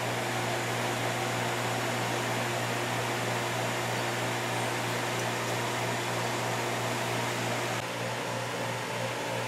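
Steady fan hum and hiss.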